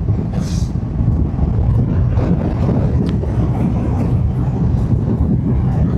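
Triumph Rocket 3 R Storm's 2.5-litre three-cylinder engine running at a steady cruise, mixed with wind rushing over the microphone.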